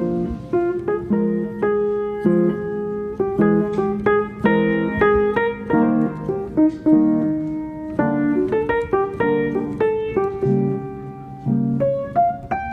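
Background piano music, a melody of separate struck notes over a low accompaniment.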